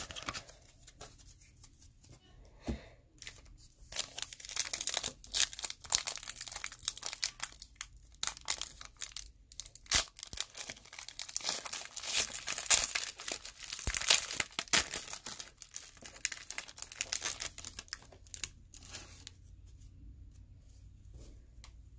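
A Score football card pack's wrapper being torn open and crinkled by hand, a dense run of sharp rips and crackles from about four seconds in until about sixteen seconds, with lighter handling before and after.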